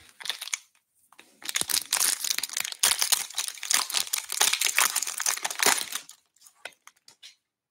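Plastic wrapper of a 2022 Bowman Draft baseball card pack being torn open and crinkled as the cards are pulled out. A brief rustle at the start, then dense crackling from about a second and a half in until about six seconds in, when it stops.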